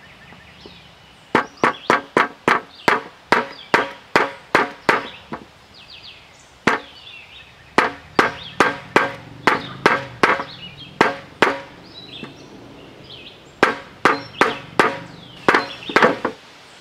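Hammer blows on a drilled wooden block, driving a new ball bearing onto an air conditioner fan motor shaft. Sharp knocks come about three a second in several runs of blows, with short pauses between runs.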